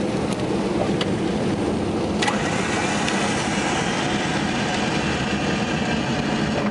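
Britten-Norman BN-2 Islander's engines and propellers heard from inside the cabin as a steady drone during the landing roll-out, with a few rattles and a sharp knock about two seconds in from the airframe on the runway.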